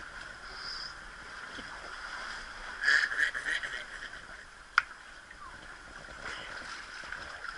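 Sea water washing and lapping against the shore rocks, with a louder rush of water about three seconds in and a single sharp click near the five-second mark.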